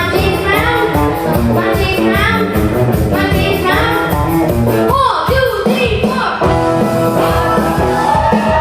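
Live rock band with drums, bass and guitar playing a cover song. Rising sliding figures repeat about once a second, then from about five seconds in the notes are held longer.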